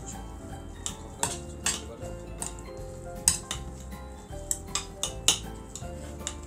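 Spoons clinking and scraping against a ceramic plate and a stainless steel bowl while eating: sharp, irregular clinks several times a second apart, some close together in pairs.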